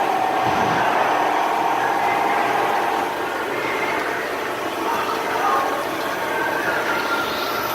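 Hardinge Conquest ST-20 CNC lathe turning a steel dental osteotome: coolant splashing under a steady machining noise, with a steady cutting whine for the first three seconds, then fainter, higher tones that shift.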